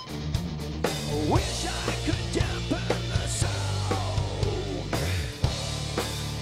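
Live groove metal band playing: distorted guitars and bass on a heavy low riff over a drum kit. Between about one and five seconds in, sliding, bending higher notes run over the riff.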